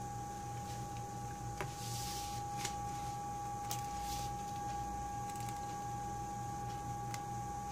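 A few light clicks and taps and two brief scraping rustles of hands handling a tablet and its screen parts on a workbench, over a steady high-pitched whine and low hum from bench equipment.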